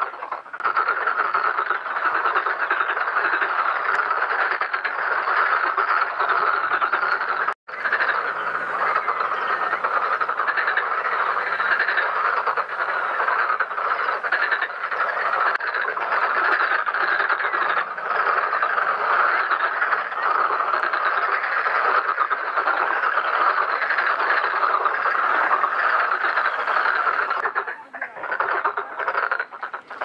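A dense breeding chorus of many black-spotted pond frogs croaking together, with calls overlapping into a continuous din. It breaks off for an instant about a quarter of the way through.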